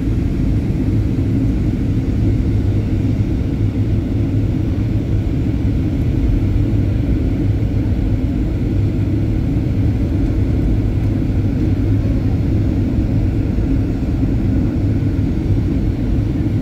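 Airliner cabin noise in flight: a steady low rumble of engines and airflow, with a hum near 100 Hz.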